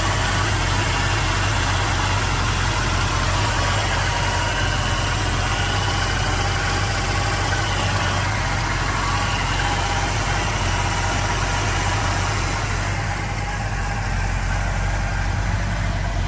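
1968 Shelby GT500's 428 V8 idling steadily.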